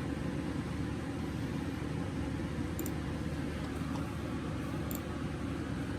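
Steady low room noise, like a fan or air conditioner running, with a few faint clicks about three and five seconds in.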